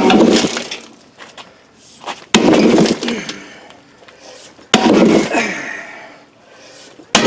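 Sledgehammer blows on a cast-iron lathe bed: four heavy strikes about two and a half seconds apart, each a sudden metallic crash with ringing that dies away over a second or more.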